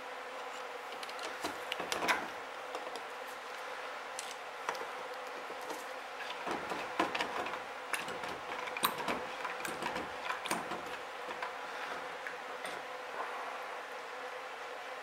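Long metal pliers clicking and knocking against carburetor parts and plastic tubs as the parts are dipped into and lifted out of an acid bath, in scattered light taps busiest in the middle, over a steady hum.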